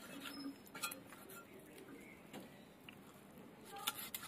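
Meat being cut by hand on a bonti, a fixed curved floor blade. A few faint clicks and knocks come about a second and a half apart, with some soft handling noise near the end.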